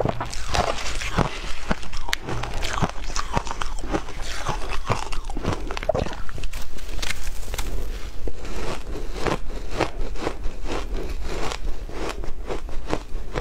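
Close-miked crunching of shaved ice being bitten and chewed, many irregular crisp crunches, along with a metal spoon scooping through the ice in a glass bowl.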